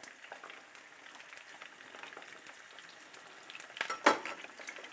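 Pieces of dorado frying in olive oil in a pan, a steady sizzle dotted with small crackles. A sharp clatter sounds about four seconds in.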